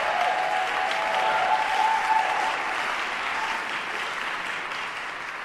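Concert-hall audience applauding, with a brief held cheer over the clapping in the first two seconds; the applause slowly dies down.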